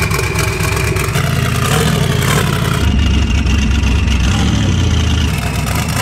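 Twin-turbo Ford Windsor V8 engine of an off-road buggy running loudly while the vehicle is driven at low speed, with small rises and falls in revs.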